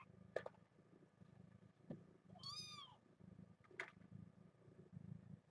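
A young kitten mewing once about halfway through: a single short, high-pitched cry that rises and falls. Two faint clicks are also heard, one near the start and one later.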